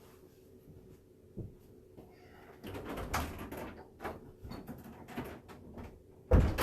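A run of clattering knocks and rustling, then a single loud thump near the end, over a low steady hum.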